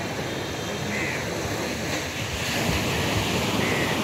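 Steady noise of surf breaking on the shore, with wind buffeting the microphone.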